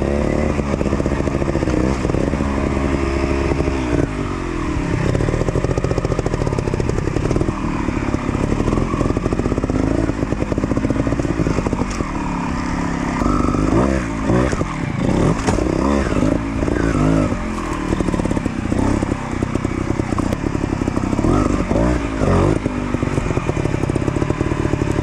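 Dirt bike engine revving in repeated short throttle blips and dropping back again, as the bike is ridden slowly over rocks in a trials-style section, with a few knocks along the way.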